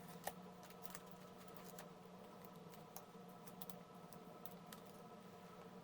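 Near silence with faint, scattered clicks and taps of paper pieces and craft tools being handled on a work surface, the sharpest about a quarter second in, over a steady faint hum.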